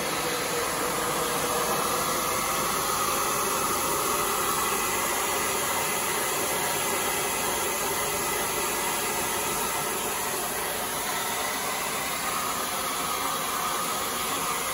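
Handheld electric hair dryer running steadily, blowing hot air onto the iced-over evaporator coil of a split air conditioner to melt the ice.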